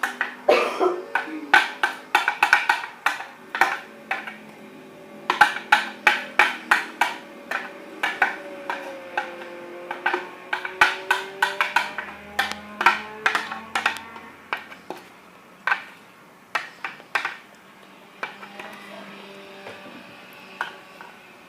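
Background pop music, an instrumental passage with a crisp, clicking percussive beat.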